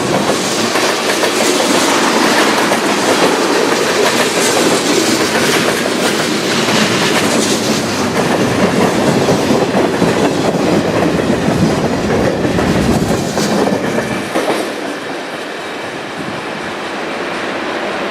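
Freight train cars rolling past, wheels clacking and rumbling over the rails; the sound eases off about fourteen seconds in.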